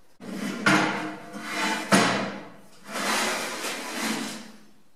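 Steel plate of a homemade tilting work-holding base scraping and sliding on its pivot as it is moved by hand, in two long strokes of metal rubbing on metal. Sharp metal knocks come near the start and about two seconds in.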